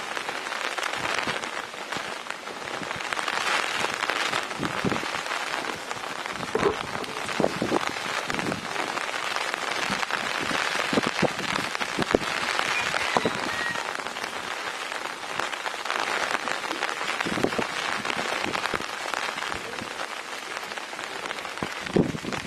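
Steady rain falling, with scattered louder drop hits.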